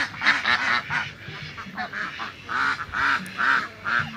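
A flock of domestic ducks quacking over and over in short, loud calls, several birds at once. The loudest quacks come from the female ducks, with fainter, lower calls mixed in.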